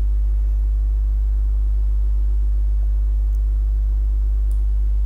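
Steady, loud low electrical hum, like mains hum picked up by the microphone, with two faint clicks about three and four and a half seconds in.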